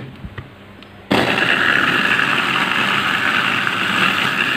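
A few light clicks, then about a second in a Mitochiba electric food chopper switches on and runs steadily, its blades whirring through red chilies, garlic and water to blend sambal.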